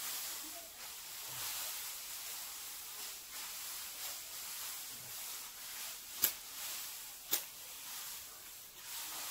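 Dry straw rustling as it is raked and shaken, in soft swells about once a second, with two sharp clicks a little past six and seven seconds in.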